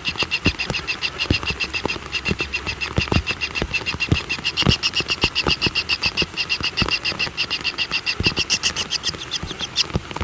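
A steady, fast series of high pulsed animal calls, about eight pulses a second, with scattered low clicks under them.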